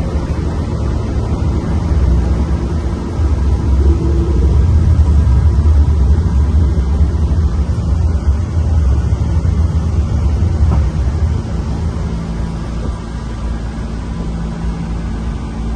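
Steady rumble of airflow and engine noise on the flight deck of an RAF Voyager (Airbus A330 MRTT) tanker in flight, swelling a little in the middle and easing near the end.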